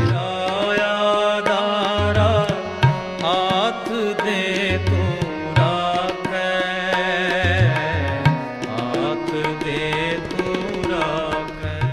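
Music of a singing voice with tabla drumming: a wavering sung melody over irregular deep tabla strokes.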